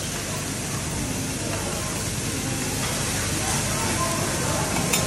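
Food sizzling and hissing on a hot teppanyaki griddle as the chef works it with a metal spatula, with a sharp clack of the spatula on the steel plate near the end. Restaurant chatter runs underneath.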